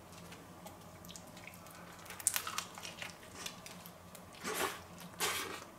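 A person biting into and chewing a bacon burger in a cheese roll, with wet smacking and squishing mouth sounds. A few sharp clicks come about two seconds in, and two short, louder breaths come near the end.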